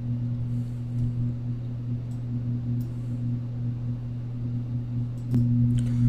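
Steady low electrical hum, two fixed pitches with no change, with a few faint clicks; no speech.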